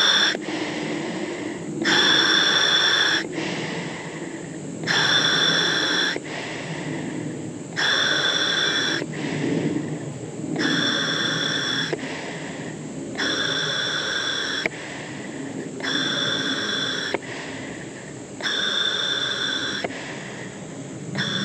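Scuba regulator on an AQUAROBO 919 diving hookah hissing with a slight whistle on each breath, about eight breaths at a steady pace, each a second or so long. The compressor is off and the diver is breathing the air stored in the pressurized hose and tank.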